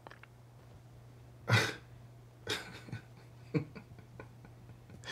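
A person coughs once about a second and a half in, then makes a few softer throat sounds, with small clicks. A faint steady low hum runs underneath.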